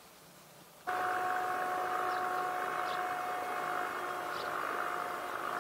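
An F-22 Raptor's twin Pratt & Whitney F119 turbofans whining steadily at low power on the ground, with several steady tones in the whine. The sound comes in abruptly about a second in.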